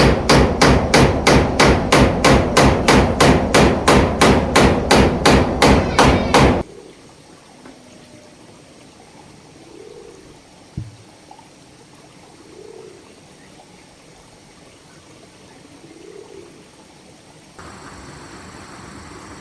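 Hammering: rapid, evenly spaced strikes at about three or four a second that stop about six and a half seconds in. A single knock follows a few seconds later.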